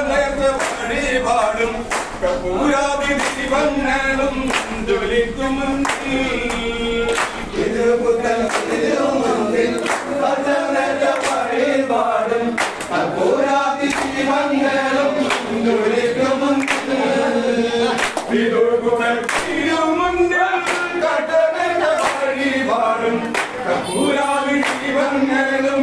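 Kaikottikali clap-dance song sung by a group, men's voices to the fore, with the dancers' hand claps keeping a steady even beat.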